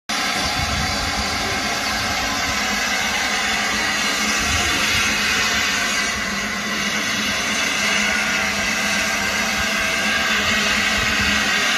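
Saddle-tank steam locomotive standing in steam, with a steady hiss of steam escaping from beneath its boiler.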